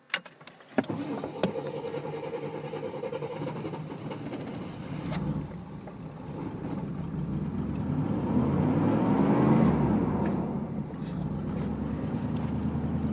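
Old Chevy 2500 pickup's engine coming to life about a second in and running, revved up and easing back around eight to ten seconds in; the truck has a problem with flooding itself.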